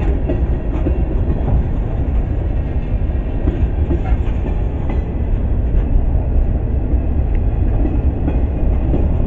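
Freight train cars rolling past close by: a steady rumble of steel wheels on rail with scattered clicks and knocks as the wheels pass over the rail joints.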